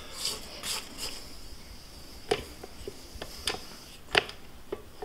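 Silicone spatula scraping thick cookie dough off a stand mixer's flat beater, with a few short scrapes early on and then several irregular light taps and knocks against the beater and the stainless steel bowl.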